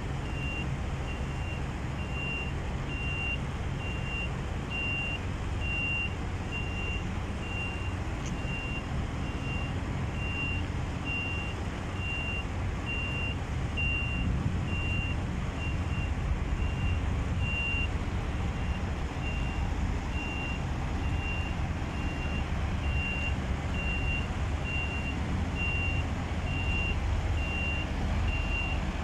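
Articulated truck's reversing alarm beeping about once a second in a single high tone, over the steady low running of its diesel engine as the rig backs up.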